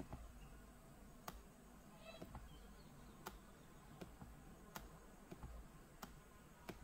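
Faint computer mouse button clicks, about one a second at an irregular pace, as pen strokes are drawn on screen, over a low background hum.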